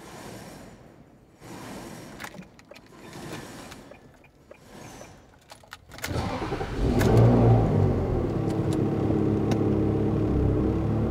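A Ferrari 360's 3.6-litre V8 starting up about six seconds in, revving briefly, then settling into a steady idle. Before that there are only faint low sounds and a few clicks.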